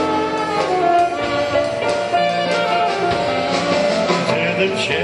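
Live old-time dance music: a grand piano with a lead melody of long held notes over it.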